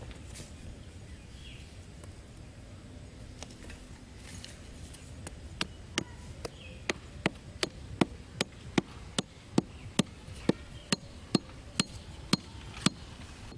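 Evenly spaced sharp strikes on wood, about two to three a second, beginning a few seconds in, as wood is worked with a tool while the trap is built.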